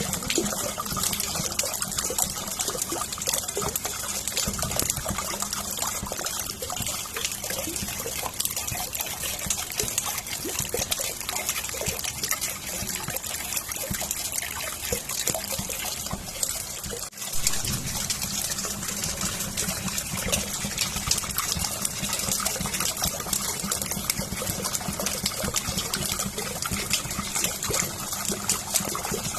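Steady rain falling, a dense patter of drops, with a brief drop in level a little past halfway.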